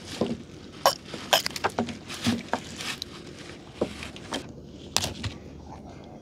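Gill net being hauled in by hand over the side of a small boat: irregular knocks, clicks and clatters, about a dozen over five seconds, the sharpest about a second in and again about five seconds in.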